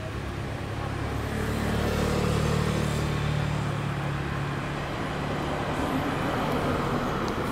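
A motor vehicle's engine running off-camera, a low hum that grows louder about a second in and then eases off as it passes.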